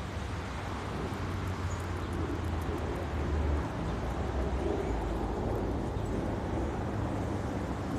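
Steady outdoor city background noise with a low traffic rumble.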